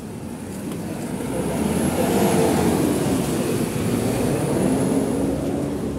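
A motor vehicle passing close by: its engine sound swells over about two seconds, holds, and eases off near the end.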